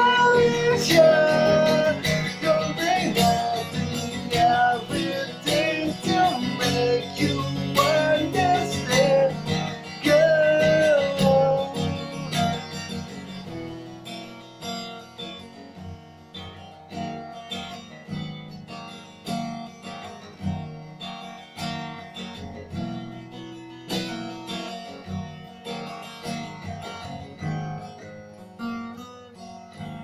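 A man singing to his own acoustic guitar. The voice stops about twelve seconds in, and the guitar plays on alone, getting quieter toward the end as the song closes.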